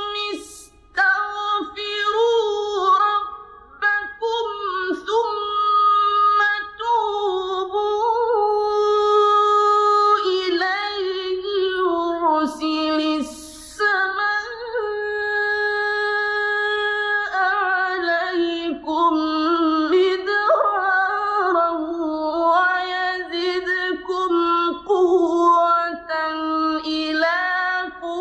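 A male reciter chanting the Quran in a high, ornate melodic style: long held vowel notes that slide and waver between pitches, with brief pauses for breath.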